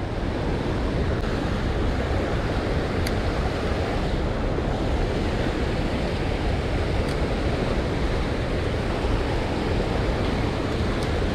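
Fast creek water rushing steadily over shallow riffles.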